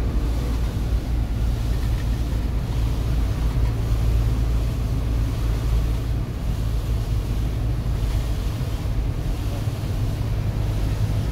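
Truck cab interior noise while driving on a wet highway: a steady low drone from the engine and drivetrain, with a hiss of tyres on the wet road over it.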